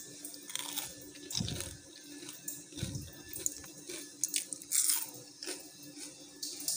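Crunchy fried rice-flour fritter (choul bara) being bitten and chewed close by: irregular crackling and clicking, with two dull thumps about one and a half and three seconds in.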